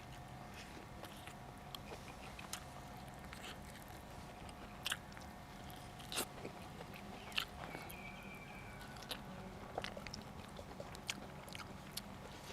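A person chewing and crunching food close to the microphone: scattered small crisp clicks, with a few louder crunches about five to seven seconds in.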